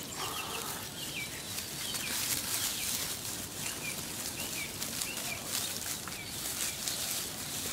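Small birds chirping over and over, short high chirps about every half second, over a steady rustling and crackling of dry straw stalks as sheep pull at and chew them.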